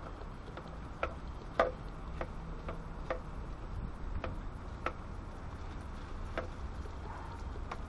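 A metal spatula knocking and scraping against a frying pan as a thick chilli with rice is stirred, giving irregular sharp clicks about one every half second to second and a half, over a steady low rumble.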